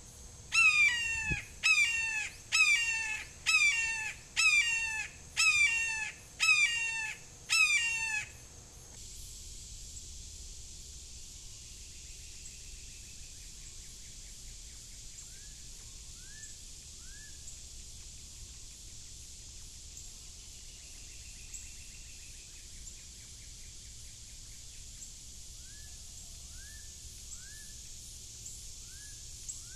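Red-shouldered hawk calling a rapid series of about ten loud, downslurred screams, nearly one a second. They stop suddenly after about eight seconds. A steady high background hum and a few faint short chirps follow.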